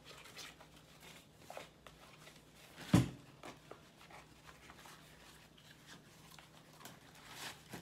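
Fresh corn husks rustling and crackling as they are peeled off ears of corn by hand, with one sharp knock about three seconds in.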